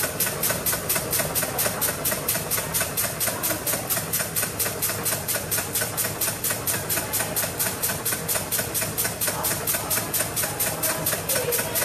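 Electric sieve shaker running with a stack of metal test sieves clamped on top, shaking a sample through them with a steady, even rattle of about five knocks a second.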